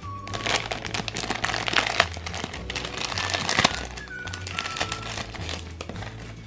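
Shiny plastic foil blind bag crinkling as it is torn open and rummaged through by hand, with sharp crackles over the first four seconds or so, over background music.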